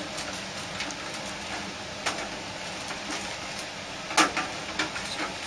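Plastic packaging bag of sterile tissue-culture flasks being pulled open and handled, crinkling in a few sharp rustles about two seconds in and again near the end, over the steady rushing of the biosafety cabinet's airflow.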